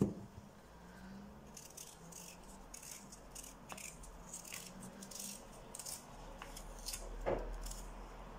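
Peeler scraping the skin off a raw red-skinned Rooster potato in many short, quick strokes. A knock at the very start as potato pieces are set down, and another thump about seven seconds in.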